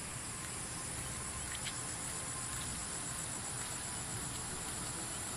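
Insect chorus giving a steady, high-pitched shrill over a faint low rumble.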